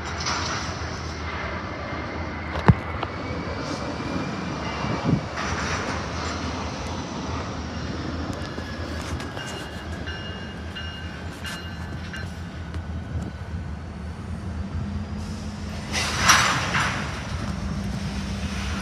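Freight train standing in a yard with its diesel locomotives idling: a steady low engine drone. A single sharp metallic knock comes about three seconds in, and a few short hissing bursts come and go, the loudest near the end.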